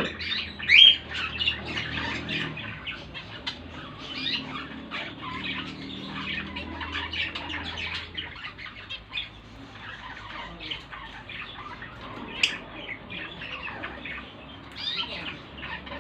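Lovebirds chattering and squawking, a dense unbroken run of short, high calls, loudest just under a second in. A single sharp click about twelve and a half seconds in.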